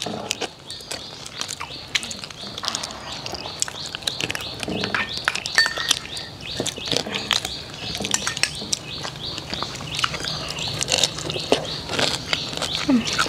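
Spoons clinking and scraping against small ceramic bowls as people eat, in many irregular sharp clicks. Birds chirp in the background.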